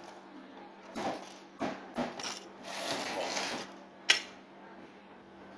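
Plastic timer switch housing being opened with a screwdriver: a few small clicks and knocks as the screws are backed out, a stretch of scraping and rubbing as the cover is worked loose, and one sharp click about four seconds in as the cover comes off.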